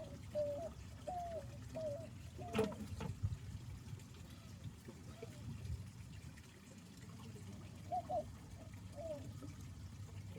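Pond water trickling steadily. Over it comes a run of short, repeated chirping calls, about two a second, in the first few seconds and again near the end, with a single sharp knock about two and a half seconds in.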